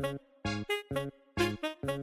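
Background music: a light tune of short, detached notes, about four a second, over a bass line.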